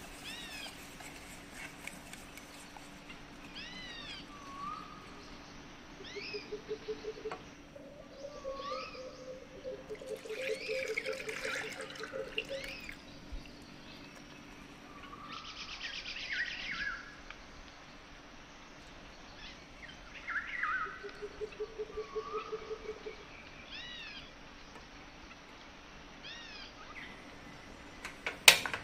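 Small birds chirping in short repeated calls, with a few lower rapid trills between them. Near the end comes a single sharp click as the knob of a portable butane gas stove is turned.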